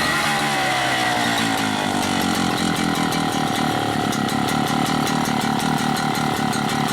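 An engine running, its pitch dropping over the first two seconds and then holding steady.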